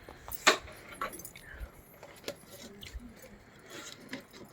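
Irregular sharp clicks, taps and light rustles of a boxed laptop table and its packaging being handled, with the loudest click about half a second in.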